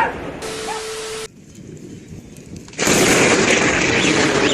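Thunderstorm audio: a sharp, loud crack right at the start, then a muffled, quieter stretch, and about three seconds in a sudden jump to a steady, loud hiss of storm noise.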